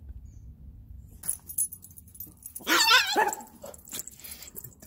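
A dog gives one short, wavering bark-growl lasting under a second, a little over halfway through, preceded by a few faint clicks.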